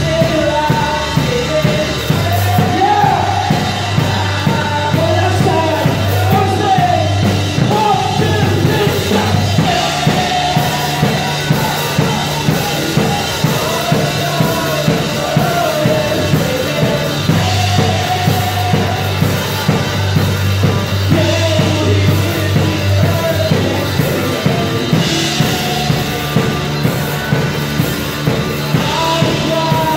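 Live worship band playing: a drum kit heard close up keeping a steady beat of kick, snare and cymbals, under held bass notes and a sung melody.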